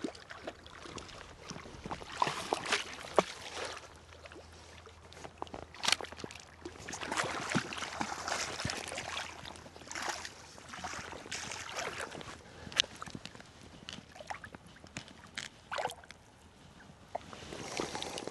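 River water splashing and sloshing in irregular bursts, with scattered sharp clicks and taps.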